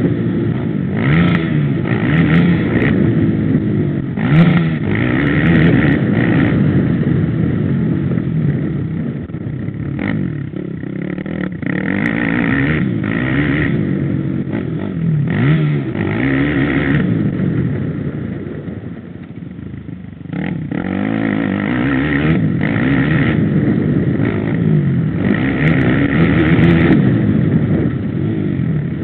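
Dirt bike engine heard from on the bike, its pitch rising and falling as the throttle opens and closes. It eases off for a couple of seconds about two-thirds of the way through, then pulls again.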